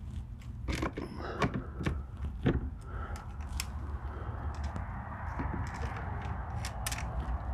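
Scattered clicks, taps and light scrapes of a Winchester/Daisy 4x32 scope being handled and seated in its metal mounting rings on an air rifle, over a steady low hum.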